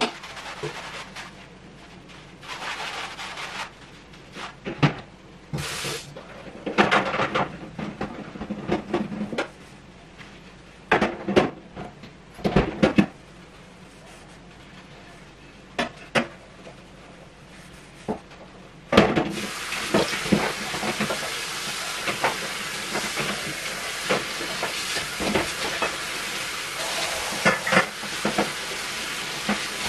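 Dishes and utensils clinking and knocking on a kitchen counter, one clatter at a time. About two-thirds of the way through, a kitchen tap is turned on and runs steadily into the sink, with more clinks of dishes under the running water.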